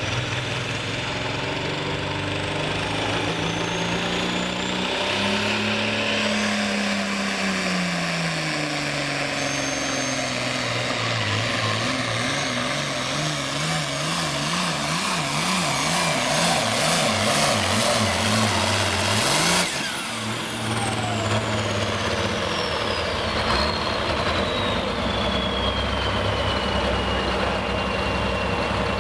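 Turbocharged diesel engine of an International hot stock pulling tractor at full throttle under the load of a weight-transfer sled. Its pitch climbs, sags as the sled bears down, then surges rapidly up and down. About two-thirds through the throttle is cut suddenly, the engine drops back to a low idle, and a high turbo whistle winds down slowly.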